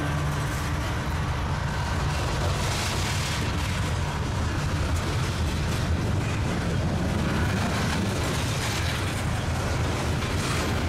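Loaded open coal hopper cars of a Norfolk Southern freight train rolling past close by: a steady rumble of steel wheels on the rails, with now and then a brief clatter.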